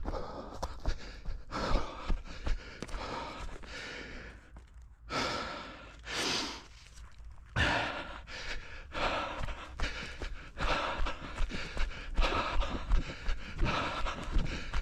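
A runner breathing hard, with heavy panting breaths in a steady rhythm and footfalls. About five seconds in there are two long, deep breaths and a brief lull, then the panting and footfalls pick up again.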